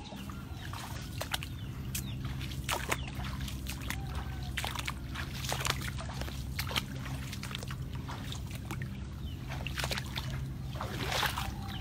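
Shallow floodwater splashing and sloshing in irregular short bursts as someone moves through it, over a steady low hum.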